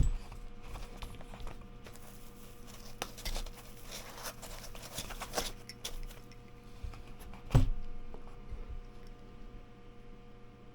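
Handling noise as a carbon crankset is taken out of its foam packaging: packaging rustling and tearing with scattered clicks, and one louder knock about three quarters of the way through.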